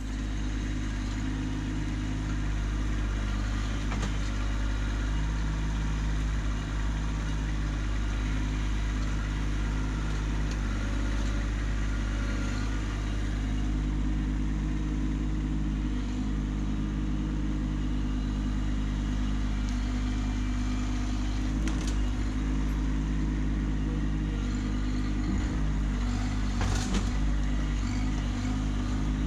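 Kubota B2601 compact tractor's three-cylinder diesel engine running steadily while the tractor drives, with a couple of light knocks past the middle and near the end.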